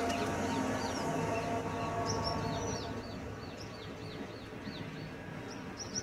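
Birds chirping: a run of short, repeated chirps that sweep downward in pitch, about two to three a second, over a low steady hum.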